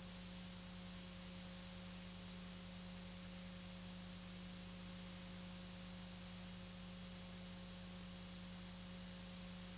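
Steady electrical hum with a fainter higher tone over a soft hiss, unchanging, with no sound of the truck's motor or tyres.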